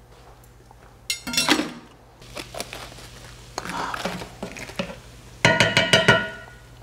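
Cookware clatter: a pan lid and utensils clanking, with a ringing clank about a second in and a louder ringing clatter about five and a half seconds in. Crisp iceberg lettuce leaves crunch as they are pulled off the head in between.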